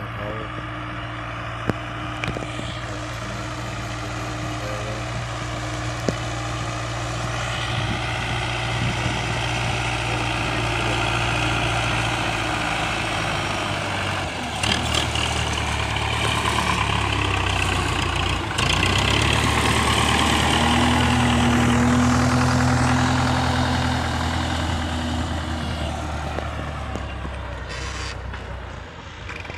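Tractor diesel engine running steadily under load while pulling a tine cultivator through dry soil. It grows louder as the tractor comes close by, then fades as it moves away near the end.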